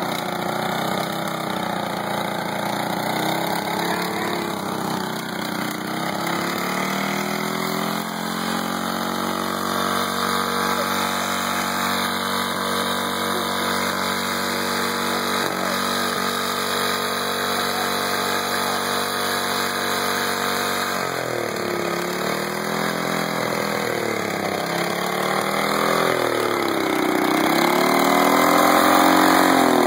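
Small engine of a Snapper stump grinder running while being fed transmission fluid, which it keeps burning instead of dying. Its speed holds steady for a while, then from about two-thirds of the way through it surges up and down repeatedly.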